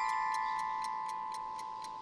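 Pocket watch ticking in rapid, even ticks, while the last few chime-like notes of a melody ring on and fade away.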